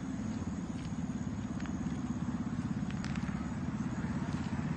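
Steady low rumble of road traffic, motorbikes and cars running along the street close by, with a few faint clicks.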